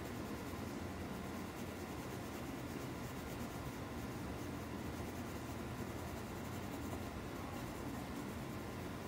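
Colored pencil shading on paper at an even pace.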